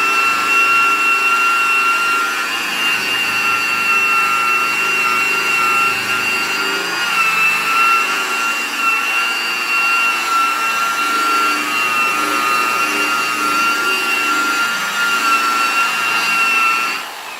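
Electric buffer running with a foam pad, polishing glaze onto a plastic headlight lens: a steady high motor whine that is switched off near the end and falls away.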